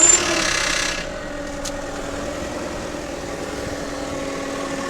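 Volkswagen Passat B5 engine catching after cranking, loudest for about the first second, then settling into a steady idle. A steady droning hum runs over the idle, which the owner puts down to the automatic gearbox.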